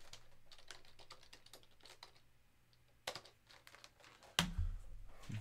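Typing on a computer keyboard: a quick run of key clicks, then two louder, separate clicks about three and four and a half seconds in.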